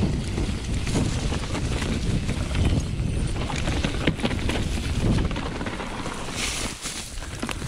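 Specialized Enduro 29 mountain bike descending a leaf-covered dirt trail at speed: wind rumbles on the microphone while the tyres roll over dirt and dry leaves and the bike rattles with many small clicks. A short hiss comes about six and a half seconds in.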